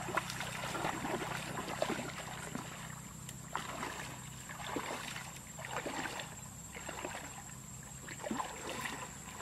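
People wading through shallow muddy water, their steps sloshing and splashing at an uneven pace, roughly one splash every second.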